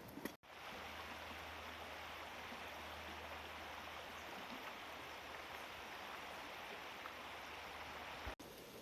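A steady rushing noise with a low hum under it, starting abruptly about half a second in and cutting off near the end.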